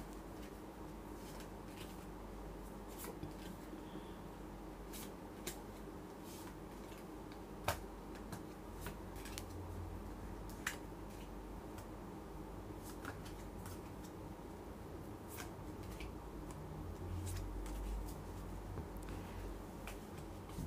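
Tarot cards being picked from a deck fanned out on a cloth-covered table: scattered soft clicks and taps of card on card, the sharpest about eight seconds in, over a steady low hum.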